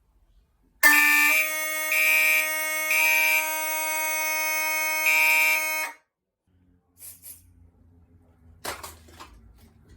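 Fire alarm horns sounding for about five seconds and then cutting off abruptly. A steady horn tone is overlaid by a higher tone pulsing in a code-3 pattern: three beats, a pause, then a fourth beat as the next round begins. This is a walk-test activation, in which a self-coded horn keeps its own code 3 while the panel-coded devices sound continuously.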